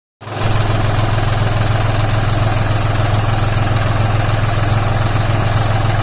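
Deutz-Fahr Agromaxx 4050E tractor's diesel engine idling steadily with a low, even hum.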